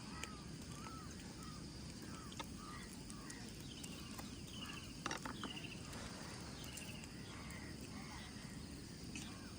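Birds calling with a run of short, arched chirps repeated every half second or so, first lower and then higher-pitched, over a steady low background noise; a single sharp knock about halfway through.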